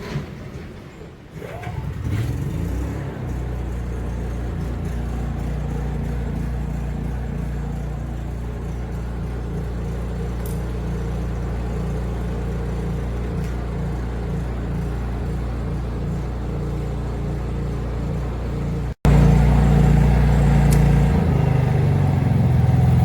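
Honda EU30is inverter generator's engine spinning up, rising in pitch, then running at a steady speed. Near the end, after an abrupt cut, it runs louder.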